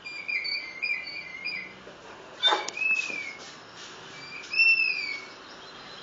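Recorded bird calls played through a laptop speaker: a quick run of short chirping notes, then single arched whistled calls about three and five seconds in. A short, sharp falling sound comes about two and a half seconds in.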